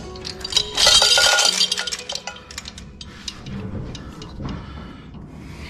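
Metal clinking and rattling, with a loud clatter about a second in and then scattered lighter clinks.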